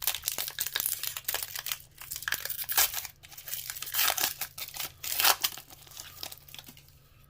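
Foil wrapper of a Pokémon booster pack crinkling and tearing as it is opened by hand. The crackling dies down to a faint rustle about five and a half seconds in.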